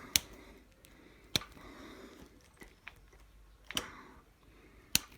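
Front brake lever and cable of a BSA A70L Lightning motorcycle being worked by hand, with four sharp clicks spread over the few seconds between softer handling and rustling. The lever is being pulled to check the cable, which still has a bit of slack.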